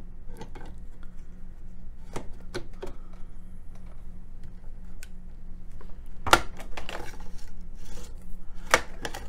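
Johnson Model 1941 rifle's barrel being slid by hand into its rail on the receiver: light metal rubbing and scraping with scattered small clicks, and two sharper clicks, one about six seconds in and one near the end.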